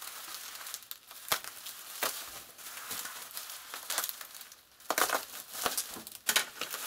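Packing material crinkling and rustling as it is unwrapped by hand, with many small sharp crackles; it eases off briefly and picks up again, louder, near the end.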